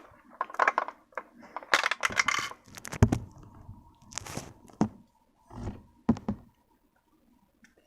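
Small plastic toy pieces and packaging being handled: scattered clicks and crackling rustles, with a few dull knocks.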